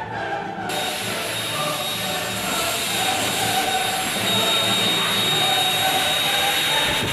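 Handheld cordless blower starting suddenly under a second in, then running steadily with a high whine, blowing sawdust off the stripped canoe hull.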